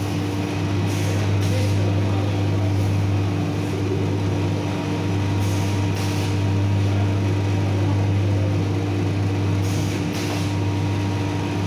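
Steady low machine hum at an even level, with a few soft brief rustles as the sandal upper is handled over its plastic last.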